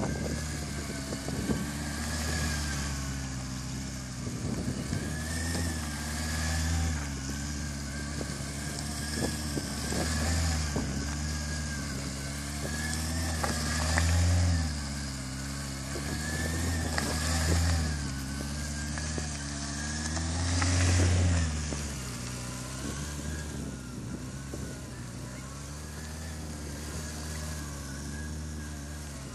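Kawasaki ZX636 sportbike's inline-four engine running at low revs, rising and falling with repeated throttle blips during slow, tight manoeuvring; it settles to a steadier low note about three quarters of the way through.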